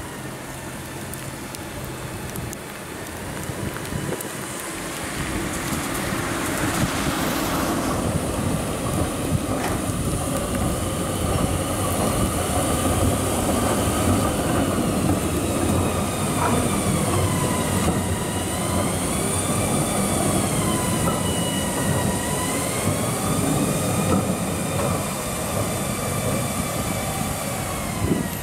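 Red-and-white GTL8 articulated tram running past on wet track. Its steel wheels squeal in the second half of the clip, several high tones wavering up and down in pitch.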